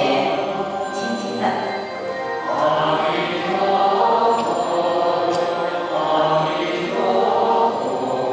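A group of voices chanting a Buddhist devotional chant in unison, with long held notes that shift pitch every second or so.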